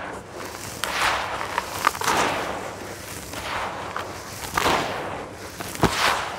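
Hands crumbling and stirring dry, gritty red clay in a basin: crunching and a grainy, sandy rustle as handfuls are lifted and let fall, in several swells with sharp crackles as lumps break, the loudest snap near the end.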